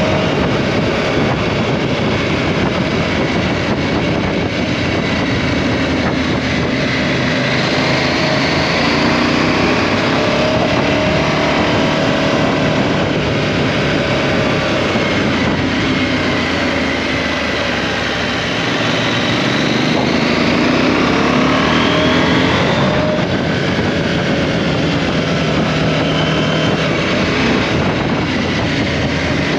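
KTM 790 Adventure's parallel-twin engine running under way, its pitch rising and falling with the throttle, with a sudden drop about two-thirds of the way in, over steady wind and road noise.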